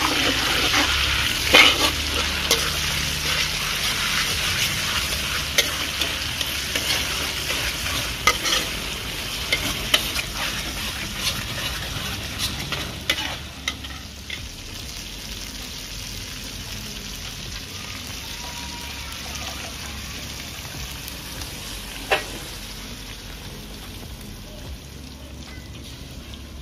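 Chilli paste, shallots and lemongrass sizzling in an aluminium wok while a metal spatula stirs and scrapes against it, with many sharp clicks. About halfway through, the sizzling drops to a quieter simmer as the marinated fish and its sauce are poured in.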